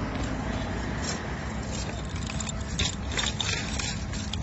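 Bicycle rolling over a rough dirt and gravel path, with a steady rumble of wind on the microphone and a series of sharp clicks and rattles from about a second in as the bike jolts over the ground.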